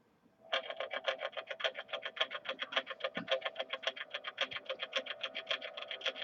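Intro music: a fast, even pulsing of distorted, guitar-like tones, about eight pulses a second, starting about half a second in.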